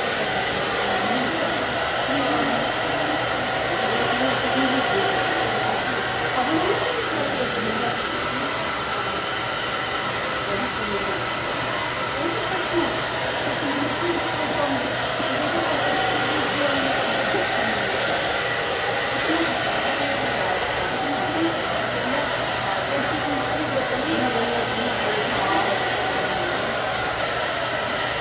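Handheld hair dryer running steadily on high, a constant rushing blow of air with a thin steady motor whine, as it dries wet hair.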